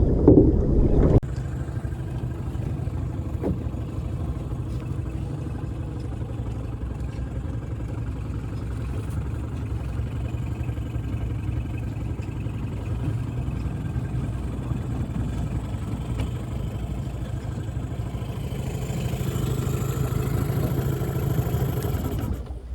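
Small boat's outboard motor running steadily, a low even hum, with a louder rumble in the first second and a slight rise in level near the end.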